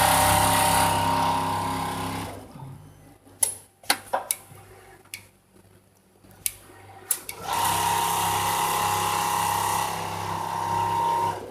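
Richpeace automatic sewing machine running in two spells of stitching: a steady hum with a high tone, for about two seconds at the start and again from about halfway until it stops just before the end. Between the spells it is quiet apart from a few sharp clicks.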